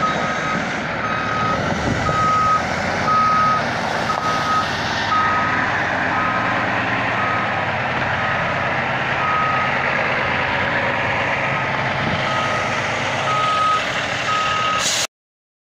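Backup alarm of a crane-equipped semi tractor beeping steadily about twice a second over the noise of the truck's engine running. The sound cuts off abruptly near the end.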